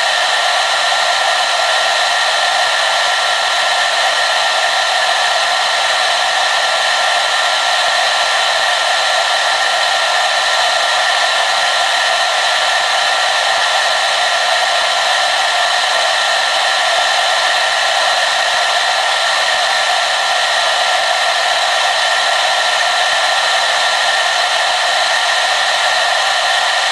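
Hair dryer blowing steadily: an even rush of air with a faint steady motor whine, unchanging throughout.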